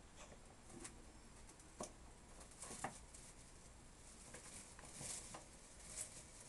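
Faint rustling and scratching of a pet rat moving about in a woven straw nest basket, with a few scattered soft clicks, the clearest a little under two seconds and a little under three seconds in.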